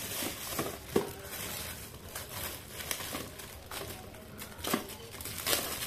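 Metallic foil gift wrap being torn open and crumpled by hand, in irregular crinkling rustles and crackles.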